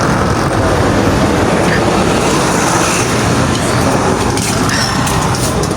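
A vehicle engine running with a steady low rumble, with a few sharp ticks near the end.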